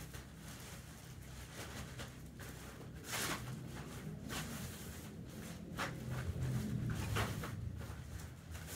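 Room tone: a steady low hum with a few brief rustles and scrapes spread through it.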